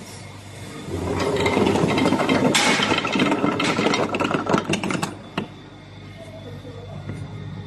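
Automatic paper tube cutting machine at work, slicing a cardboard core into rings: a loud rattling clatter of many quick clicks from about a second in until about five seconds, then one sharp click.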